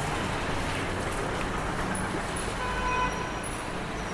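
Steady background street and traffic noise, with a brief faint pitched tone about three seconds in.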